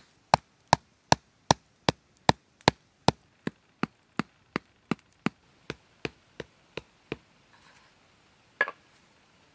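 A wooden club knocking a forked wooden stake into the ground: a steady run of sharp wooden knocks, about two and a half a second, that grow fainter and stop about seven seconds in, followed by one louder single knock near the end.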